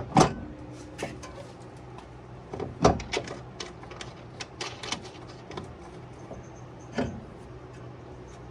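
Scattered clicks and knocks of a front strut being worked up into its top mount and a bolt started to hold it, with louder knocks about a quarter second in, near three seconds and about seven seconds in.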